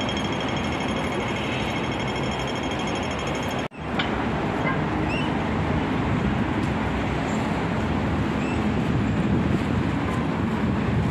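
Steady outdoor background noise heard while walking. A fast, even mechanical ticking rides on top for the first few seconds. About four seconds in the sound cuts out for an instant, and after that the steady noise continues with a few faint short chirps.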